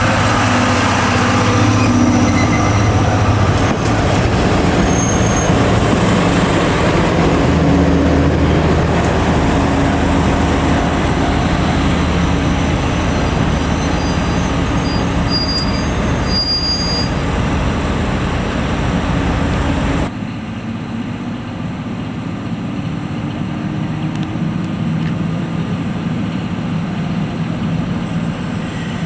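Diesel train at a standstill or crawling, with the V12 diesel engine of its JR DE10 diesel-hydraulic locomotive running steadily at idle. About twenty seconds in, the sound turns abruptly quieter and duller, with the engine drone continuing.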